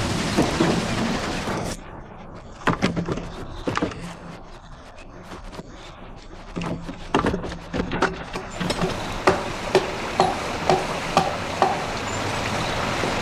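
Wooden knocks and thuds from the workings of a water-powered sawmill, over a steady rush of water. Irregular knocks at first, then a regular knocking about twice a second near the end.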